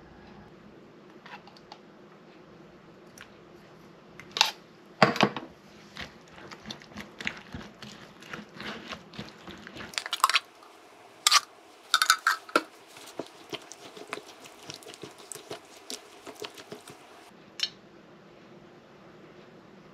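A plastic measuring spoon scraping and knocking canned cut tomatoes out of a tin can into a plastic bowl of chopped onion, with clicks and scrapes on the can and bowl and wet squelches of the tomato. The handling noises stop a couple of seconds before the end.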